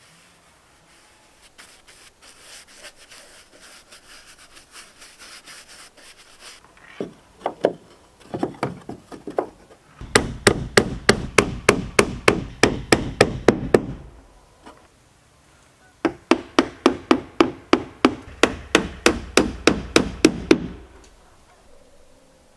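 A hammer driving nails into wooden boards: after some faint rubbing of wood and a few separate knocks, two runs of quick, even blows at about three to four a second, with a short pause between them.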